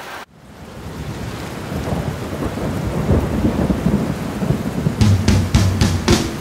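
Thunderstorm: rain with a rolling rumble of thunder that swells up after a sudden start, then a few sharp cracks of thunder about five seconds in.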